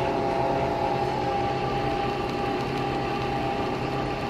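Nespresso Vertuo Next coffee machine brewing: the capsule spins and the pump runs, giving a steady whirring hum with one constant high tone as the coffee streams into the mug.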